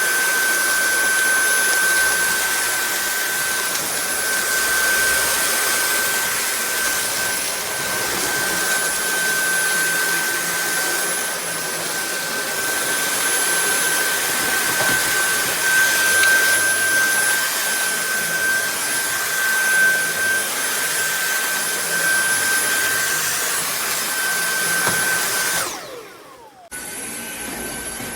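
Dyson V8 cordless stick vacuum running with a steady high-pitched motor whine. Near the end it cuts out, its whine falling away, then starts up again about a second later, quieter.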